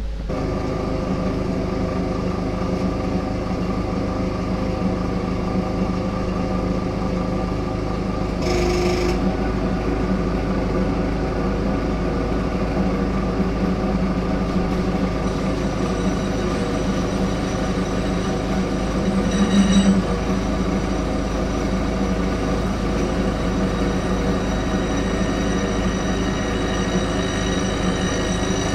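Metal lathe running steadily with a constant machine hum, turning a tractor final drive part while a small step is machined into it to push the bearing in for preload. About halfway a thin high whine joins in, and there is a brief louder surge around two-thirds of the way through.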